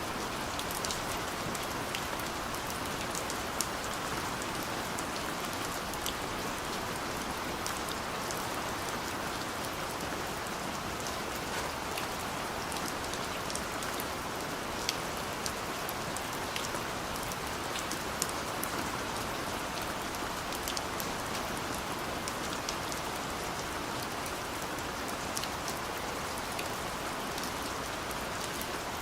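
Steady rain, an even hiss with many separate drops ticking on a hard surface and a few louder single drop strikes scattered through.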